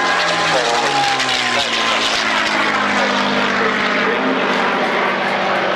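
P-51 Mustang's V-12 piston engine running at power in a flypast. Its drone drops in pitch over the first second or so as it passes, then holds steady.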